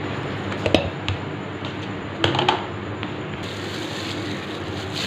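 Chicken pieces sizzling in a frying pan with sauces, a steady hiss, with a few sharp clicks of a utensil against the pan.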